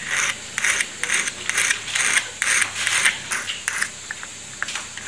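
Diamond file drawn in quick strokes, about two a second, across the steel tip of a watch case opener held on a wooden bench pin, thinning the edge that goes under a watch's case back. The strokes ease into a few lighter scrapes and ticks after about four seconds.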